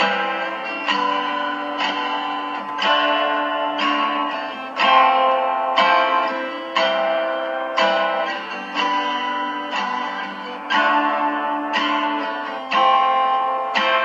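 Acoustic guitar played by hand, chords picked about once a second and each left to ring into the next.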